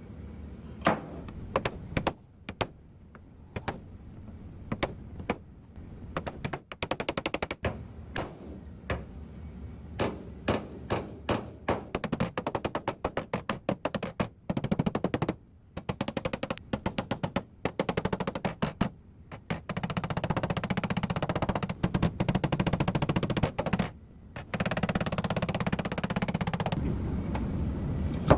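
Rapid metal tapping on a car door panel, typical of paintless dent repair work with a knockdown or blending hammer: single taps at first, then fast runs of strikes that grow denser in the last third.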